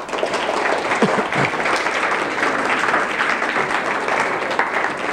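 Audience applauding, starting suddenly and tapering off near the end.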